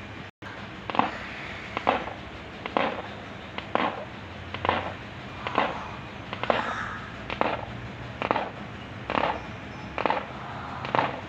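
An animal grinding its teeth (bruxism): short grating strokes at a steady rhythm of about one a second, eleven in all. The grinding is a sign of abdominal pain.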